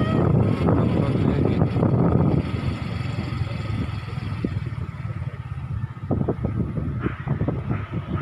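A vehicle's engine running and wind on the microphone as it rolls down a rough dirt road, heaviest in the first couple of seconds, then lighter with scattered knocks and rattles from the bumpy surface.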